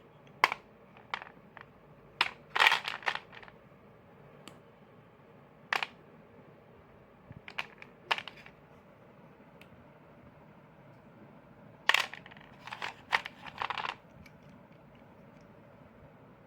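Crisp crunching, some single crunches and some in quick clusters of several, with quiet gaps of a few seconds between them.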